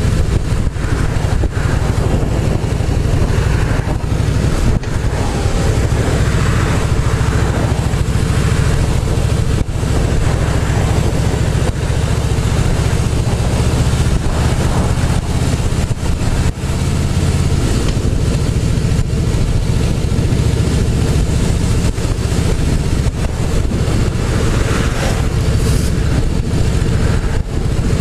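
Harley-Davidson Softail Slim's V-twin engine running steadily on the move, heard through a helmet-mounted mic with wind rushing over it.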